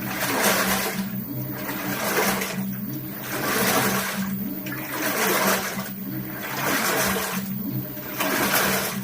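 Washing machine in its wash cycle, the drum turning back and forth so the water and laundry slosh in a swish about every second and a half, over a steady low motor hum.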